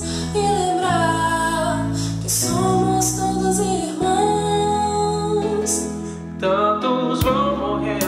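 A woman singing a song in Portuguese over an instrumental backing of held bass notes; a few sharp percussive hits come in near the end.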